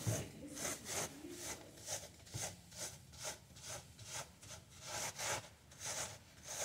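Gloved hands rubbing dried seed heads against a wooden-framed mesh screen in steady back-and-forth scratchy strokes, about two a second. This is hand-threshing: breaking the plant material down so the seeds fall free of the chaff.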